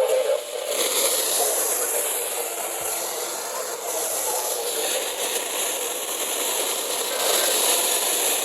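Radio static: a steady hiss from a receiver tuned between stations or to a weak signal.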